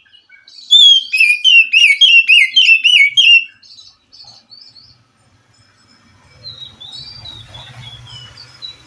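Oriental magpie-robin (kacer) singing: a loud, rapid run of about ten repeated sweeping whistled notes lasting about three seconds. Softer, scattered phrases follow, and a faint low hum comes in near the end.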